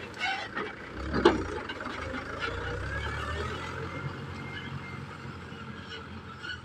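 Mahindra 475 DI tractor's four-cylinder diesel engine running under load as it pulls a loaded paddy trailer away, growing fainter with distance. A single loud knock about a second in.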